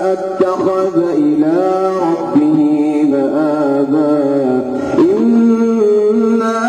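A male qari chanting Quran recitation in drawn-out melismatic style, holding long notes with ornamental turns. His pitch drops about a second in and climbs again about five seconds in.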